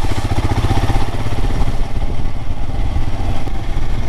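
Royal Enfield Himalayan motorcycle's single-cylinder engine running steadily while being ridden, a rapid even low pulsing.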